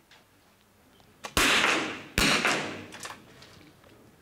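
Two smallbore .22 rimfire target rifle shots about a second apart, the first just after a faint click; each sharp crack rings on and dies away over about a second in a reverberant indoor hall.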